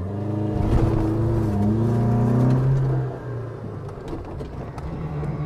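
Off-road SUV engine revving hard under load, its pitch climbing for about three seconds and then dropping back. The vehicle is straining up a slope with no four-wheel drive engaging.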